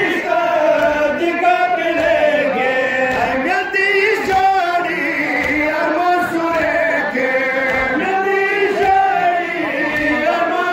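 Men's voices chanting a nohay, a Shia mourning lament, in a continuous sung line that rises and falls.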